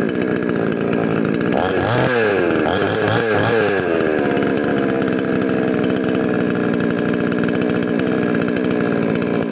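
Two-stroke chainsaw with a 20-inch bar running just after starting, with the choke pushed back in. It is revved up and down a few times about two seconds in, then settles to a steady run.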